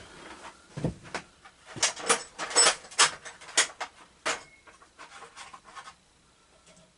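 Metal hand tools clinking and clattering as wrenches are rummaged through, a quick irregular string of clinks that thins out near the end.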